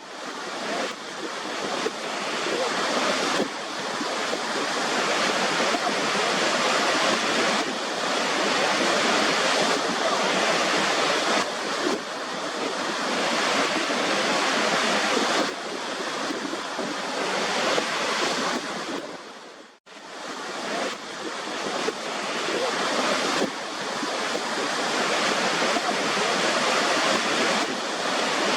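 Waterfall: a steady rush of falling water. About twenty seconds in it dips almost to silence for a moment, then swells back up.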